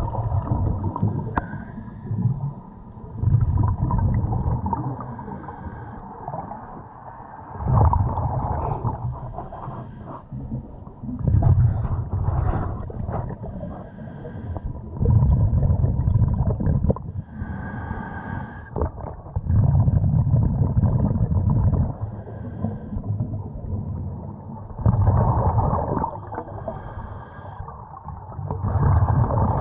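Muffled underwater sound of the swimmer's own breathing: a low rush comes back every three to five seconds, with fainter bubbling and a few ticks from the camera housing in between.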